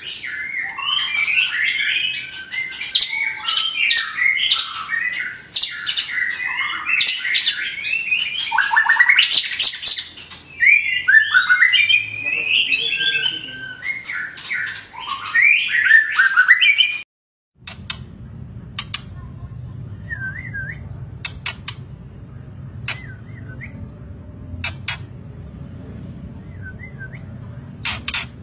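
White-rumped shama singing loudly in full song: a dense run of rapid, varied whistles and harsh notes. About seventeen seconds in, the song cuts off abruptly, giving way to a low steady hum with scattered sharp clicks and a few faint short chirps.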